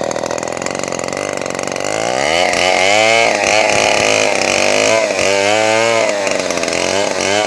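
Two-stroke chainsaw sawing planks from a log: it runs steadily, revs up about two seconds in, and its pitch then dips and recovers again and again as the chain loads up in the cut.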